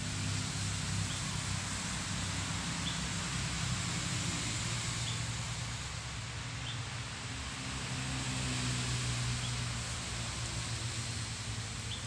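Forest ambience: a steady hiss of background noise with a low hum underneath, and a short, high chirp repeating every second or two.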